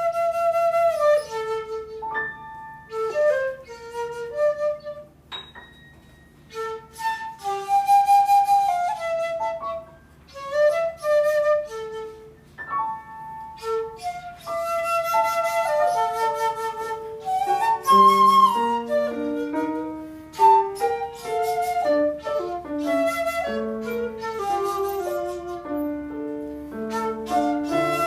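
A seven-hole shakuhachi (1.6 shaku long) plays a slow melody over piano accompaniment. Held wind notes sound alongside struck piano notes and chords that ring and fade.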